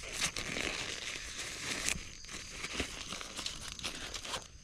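Crinkling and rustling of a VASTLAND ground sheet being handled, with a few sharper crackles; it stops near the end.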